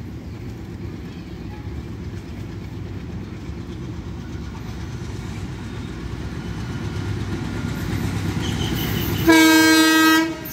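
Diesel locomotive hauling a passenger train on approach, its rumble growing steadily louder; about nine seconds in it sounds one loud horn blast lasting just over a second.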